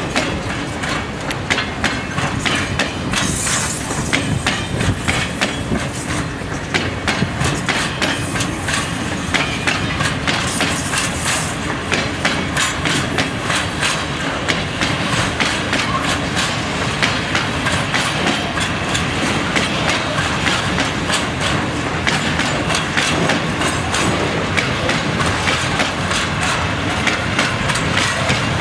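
Freight train wagons rolling past, their wheels clicking steadily over the rail joints, with a brief high squeal now and then.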